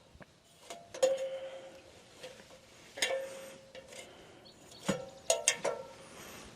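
Knocks and clanks on a ladder as someone climbs it. There are about five hits, each followed by a short ringing tone, the clearest about a second in and three seconds in, and a quick cluster near the end.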